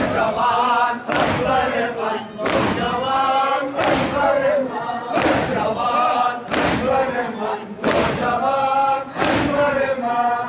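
A large crowd of men chanting a noha in unison, with a loud collective thump of hands striking chests (matam) in time, about once every second and a half.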